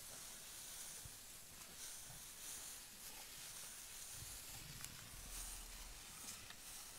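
Faint outdoor bush ambience: a steady high hiss with a few soft ticks, and a low rumble from about four seconds in.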